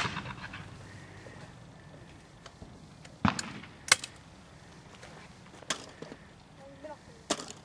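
A few sharp metallic clicks and knocks, about four, spread over several seconds, from a 20-gauge Hatsan Escort Magnum semi-automatic shotgun being handled between shots.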